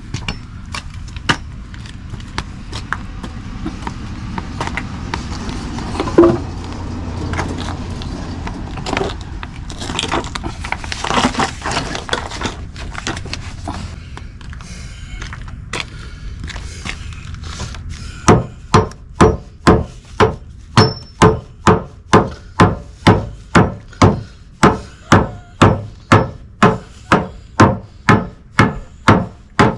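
Scattered knocks and clicks over a low rumble, then, about two-thirds of the way in, a steady run of hammer blows on wood, a little under two strikes a second.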